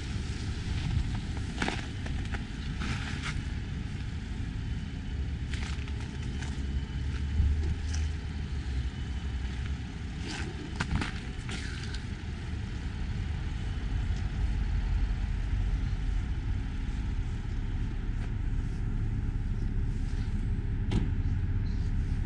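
Steady low rumble with scattered short clicks and crackles, growing slightly louder toward the end.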